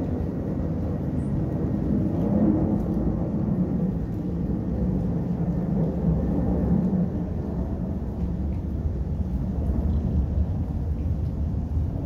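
Steady rain over forest and lake, heard from under cover: an even low rumble with a few faint drop ticks.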